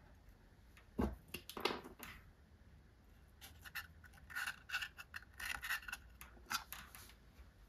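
Two soft handling knocks, then a felt-tip marker scratching on cardboard in short quick strokes, marking hole positions through the holes of a metal plate.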